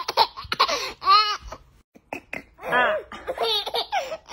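A baby laughing in several short, high-pitched bursts of giggles with brief pauses between them.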